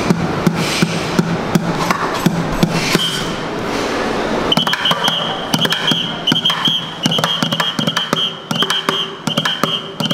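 Fast drumming on upturned plastic buckets and cymbals, the bucket strokes giving a pitched, hollow thump. About halfway through, a whistle held in the drummer's mouth joins in with long, shrill blasts that break off and come back over the drumming.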